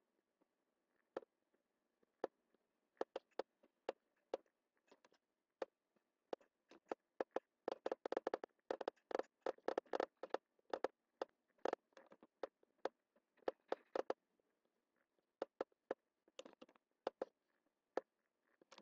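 Faint computer mouse button clicking, irregular single clicks that turn into a fast flurry about eight seconds in and thin out again after eleven seconds.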